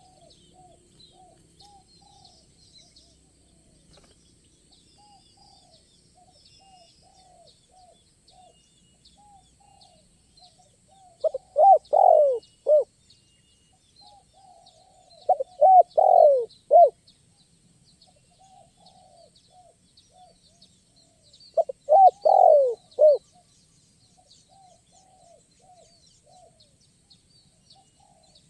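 Spotted doves (tekukur) cooing: three loud phrases of several coo notes, each lasting about a second and a half, come several seconds apart. Fainter coos keep repeating in between, with faint high chirping of small birds.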